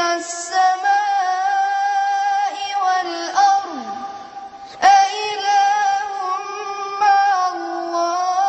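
A boy's solo voice chanting a long melodic line in held, ornamented notes. The line dips and falls away about four seconds in, and a new phrase starts sharply about a second later.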